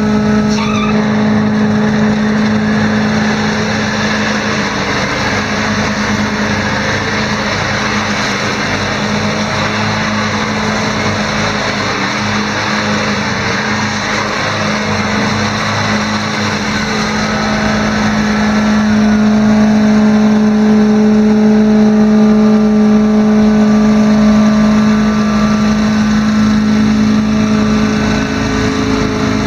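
25 hp Kawasaki engine of a Bunton 61-inch commercial zero-turn mower running steadily at a constant pitch, with a broad mechanical rush over it, a little louder for a few seconds past the middle.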